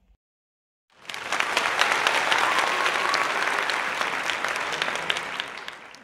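Crowd applauding, a dense patter of many hands clapping that starts about a second in and tails off near the end.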